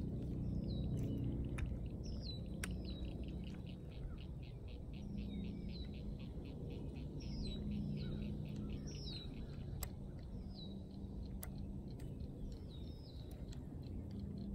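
Birds calling: short high chirps that fall in pitch, repeated every second or so, with a fast even trill from about two to six seconds in. Under them runs a low background hum, with a few faint clicks.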